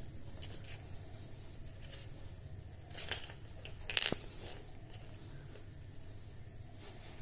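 Faint handling noise as stones under a small plastic plant pot are shifted by hand on a hard stone floor, with two short scrapes about three and four seconds in, the second the louder.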